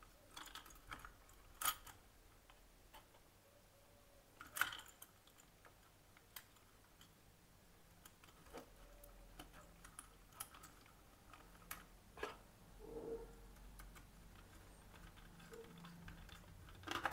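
Faint, scattered small clicks and taps of a wire being fitted onto a brass screw terminal of a socket on a plastic switchboard, the loudest click about four and a half seconds in.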